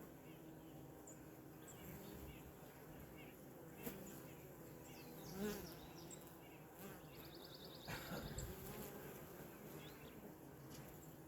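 Honeybees buzzing at a hive entrance, a faint steady hum of many bees, with one bee buzzing louder as it flies close past about halfway through.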